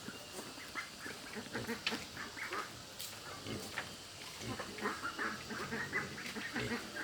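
Ducks quacking, a stream of short overlapping calls from several birds.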